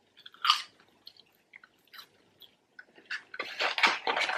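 Chewing McDonald's fries, heard as scattered short wet mouth clicks and crunches. About three seconds in, a dense crackling rustle starts: fingers digging into the cardboard fry carton.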